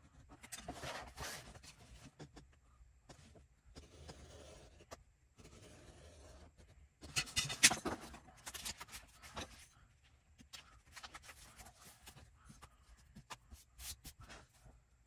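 X-Acto craft knife slicing through book pages a few at a time, in a series of short scratchy strokes, loudest about halfway through, with a few sharp ticks near the end.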